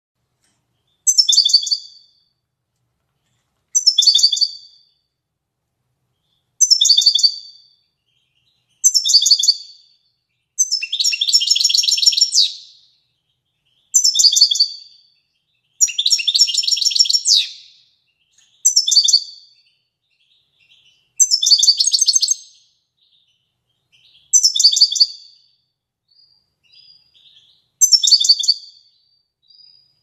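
European goldfinch singing: about eleven short, bright twittering phrases spaced every two to three seconds, with two longer, fuller phrases near the middle.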